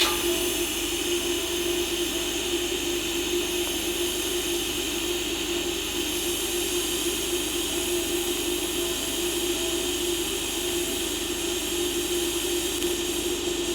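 DC lift-TIG welding arc from a Decapower Ecoarc 160 inverter welder, burning with a steady hiss and a constant hum.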